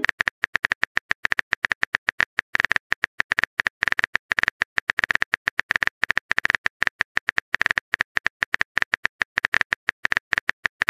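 Phone keyboard typing sound effect: a rapid, uneven run of short clicks, several a second, one per letter as a text message is typed out.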